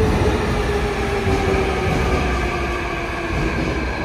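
Seoul Subway Line 2 electric train running into the station with a loud rumble, its motor whine falling steadily in pitch as it slows.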